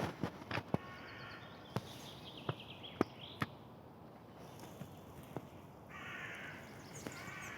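A bird calls three times with short, coarse calls, among footsteps on a path.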